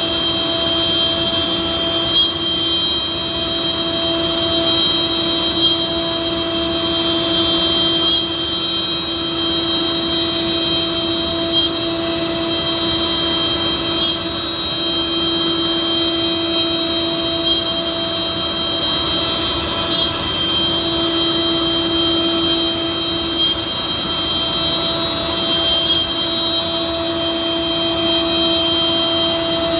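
CNC router spindle running and cutting a wooden sheet: a steady machine whine with several fixed pitches over constant cutting noise. Faint ticks recur about every six seconds.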